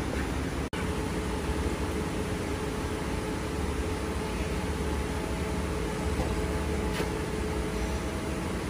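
Stone bead milling machinery running: a steady mechanical hum and hiss with a faint constant whine. The sound cuts out for an instant just under a second in.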